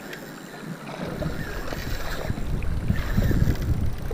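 Wind buffeting the camera microphone, a low, irregular rumble that grows louder from about a second in.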